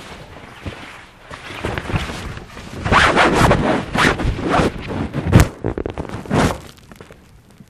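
Fabric rustling and swishing as a barber cape is shaken out and spread over the back of a barber chair: a run of quick swishes, loudest in the middle, dying away near the end.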